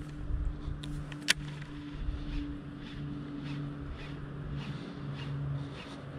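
Baitcasting reel being cranked on a retrieve: a soft ticking about twice a second, with a sharp click about a second in, over a steady low hum.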